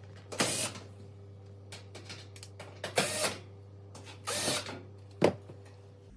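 Cordless power driver run in four short bursts, fastening the screws of an oven's back panel, over a steady low hum.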